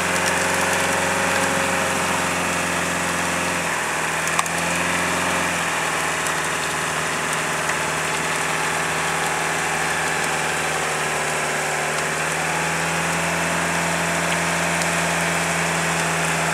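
A Toyota Hilux pickup's engine running at low, steady revs while the truck sits bogged in deep mud. The engine note shifts about 4 s in, again near 6 s and again about 12 s in. A single sharp knock comes about 4.5 s in.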